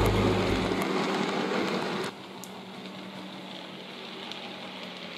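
A Hornby model train running along its layout track. The sound fades and then cuts off abruptly about two seconds in, leaving only a faint steady hum.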